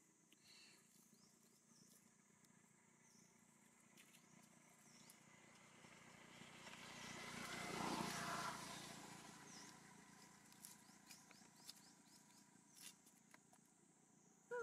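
Faint outdoor quiet with a vehicle passing in the distance, swelling to its loudest about halfway through and then fading away. Small high chirps and ticks sound throughout.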